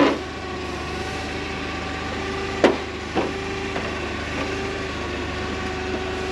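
A steady mechanical hum with several fixed tones, broken by two sharp knocks about half a second apart a little before the middle.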